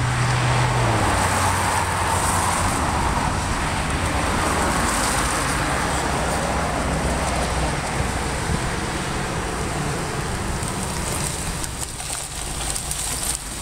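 Road traffic on wet pavement: car tyres hissing on the wet road, with a passing vehicle's hum dropping in pitch about a second in as it goes by, then fading slowly.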